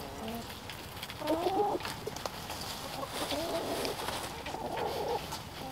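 Backyard hens clucking and calling as they forage, several drawn-out calls with the loudest about a second in.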